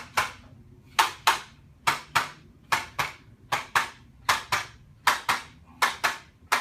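Chiropractic adjusting taps on the patient's back: a steady run of sharp, paired clicks, about eight pairs with a new pair roughly every 0.8 seconds.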